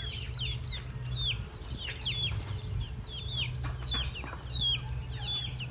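Ducklings peeping steadily, short high calls that fall in pitch, two or three a second, over a steady low rumble.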